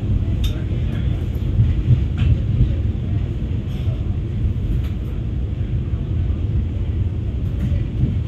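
Vande Bharat Express coach running on the rails, heard from inside the coach as a steady low rumble, with a few faint clicks.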